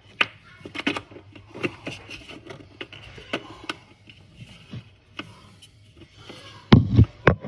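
Irregular clicks, taps and light scrapes as a metal under-cabinet LED light track and its mounting clip are handled and pulled down, with a few heavier knocks near the end.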